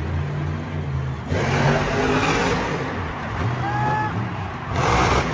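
Megalodon monster truck's supercharged V8 engine revving up and down as the truck pops a wheelie, growing louder about a second in and again near the end.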